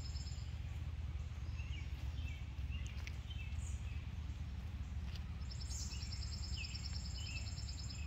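Garden ambience: a few short bird chirps over a steady low rumble, with a high, fast trill coming in about two-thirds of the way through.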